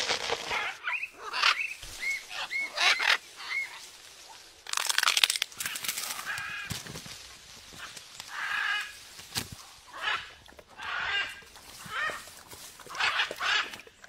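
Blue-and-gold macaw giving a series of short, harsh squawks and honking calls, one every second or so, with a burst of rustling or crackling about five seconds in.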